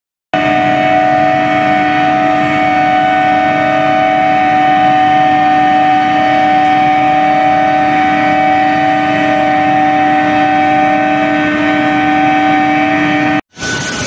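Billet induction reheating furnace running under power: a loud, steady hum of several tones at once, the coils' electrical whine, over a bed of machinery noise. Near the end it cuts off abruptly and a noisier machine sound without the strong tones follows.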